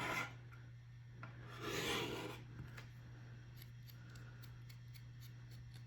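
A steel blade drawn across a ceramic sharpening rod: one stroke ending just after the start and another swipe about two seconds in, followed by faint light clicks, with a steady low hum underneath.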